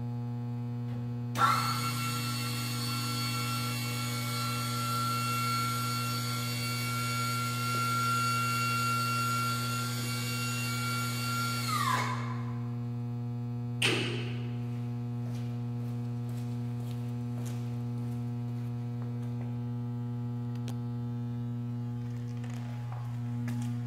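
The 12V electric lift motor of a portable scissor lift runs for about ten seconds as the platform rises. It is a steady high whine that starts with a thunk and drops in pitch as it stops. A single clunk comes about two seconds later, and a steady electrical hum runs underneath throughout.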